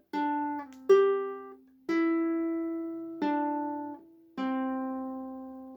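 Ukulele playing a slow intro riff: about five notes or small chords plucked one after another, each left to ring and fade before the next.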